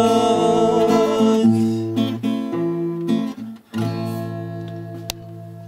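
Acoustic guitar with a man's voice holding the song's last sung note, then a few closing strums and a final chord that rings and fades away. A single sharp click near the end.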